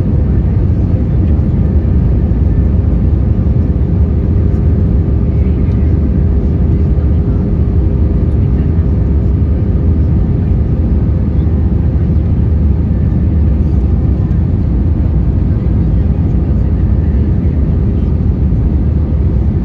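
Airbus A320 cabin noise on approach, heard from a seat over the wing: a steady, loud, low rumble of engines and of airflow over the extended flaps, with a faint steady hum.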